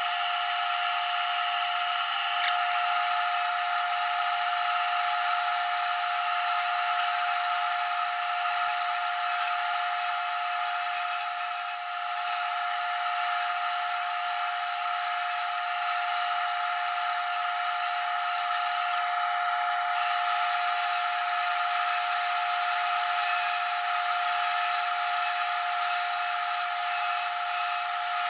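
Bowl gouge cutting into a cherry bowl spinning on a wood lathe, a steady hiss of shavings being cut over a constant high whine from the running machinery.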